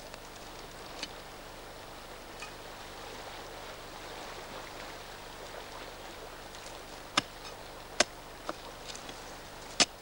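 A steel Kolesov planting bar working into stony forest soil: a few sharp clicks and knocks over a steady hiss. The clicks are faint about a second in, then come as four in the last three seconds, loudest about eight seconds in and just before the end.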